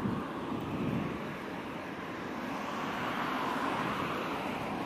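Steady wind noise on the microphone of a bicycle-mounted action camera while riding, mixed with road traffic, which swells briefly around the middle.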